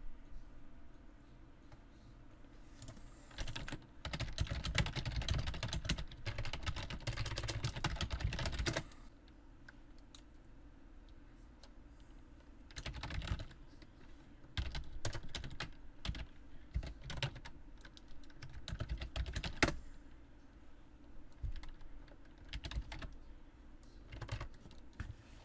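Typing on a computer keyboard: a fast, dense run of keystrokes for about five seconds, then short runs of keys with pauses between them.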